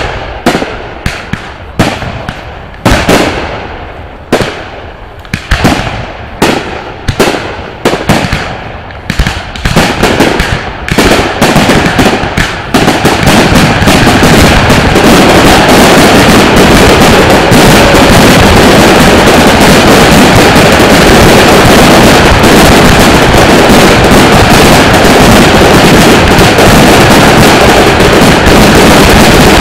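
Aerial fireworks bursting overhead: single sharp bangs, one or two a second, for about the first dozen seconds, then the shells come so fast that they merge into one continuous, very loud wall of noise, the finale barrage.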